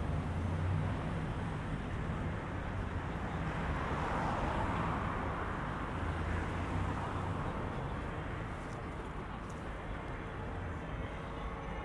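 City street traffic heard from a bicycle in a binaural recording: car engines rumbling and tyres on the road, with a steady urban hum. A car passes close by about five seconds in.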